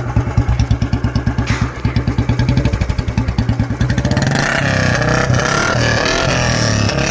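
2002 Royal Enfield Bullet's single-cylinder four-stroke engine running on its stock silencer, first idling with evenly spaced separate thumps. From about four seconds in it is revved, the beats merging into a denser exhaust note that rises and falls. Very loud.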